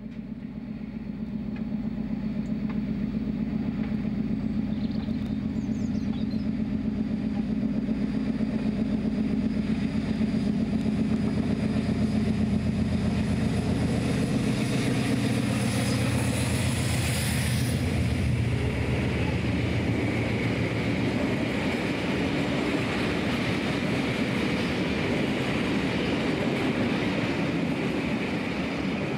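Class 56 diesel-electric locomotive's Ruston-Paxman V16 engine labouring hard under the load of a train of bogie oil tank wagons as it draws near and passes. About two-thirds of the way through, the engine drone gives way to the rumble and clatter of the tank wagons' wheels on the rails.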